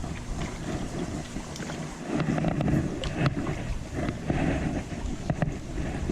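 Creek water running, with wind buffeting the microphone and scattered small knocks and clicks.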